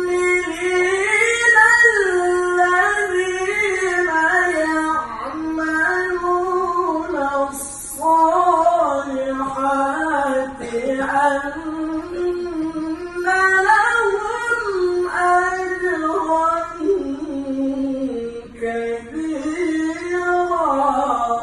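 A male qari reciting the Quran in melodic tilawah style: one high solo voice holding long ornamented notes that waver and step between pitches, with short pauses for breath, and the line sinking lower near the end.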